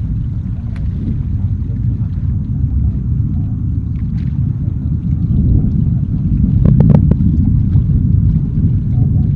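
Steady low rumble of an Atlas V rocket's RD-180 first-stage engine as it climbs after liftoff, with a few brief clicks about seven seconds in.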